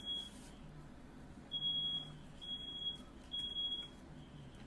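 Smoke alarm sounding its high beep in groups of three with a pause between groups, the standard evacuation pattern, set off by firework smoke in the room.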